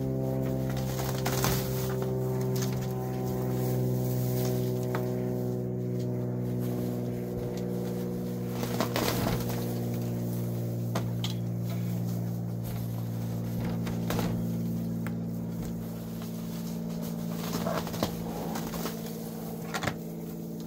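A steady low hum from an unseen motor or engine, made of several even tones, with brief rustles and clicks now and then as dry grass and weeds are pulled up by hand.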